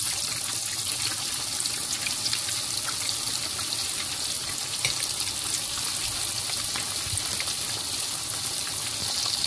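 Coated chicken pieces deep-frying in hot oil: a steady hiss of bubbling oil with many small crackles and pops.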